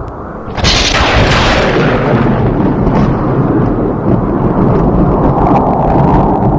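Close thunderclap: a sharp crack about half a second in, followed by a long rolling rumble, over steady storm wind.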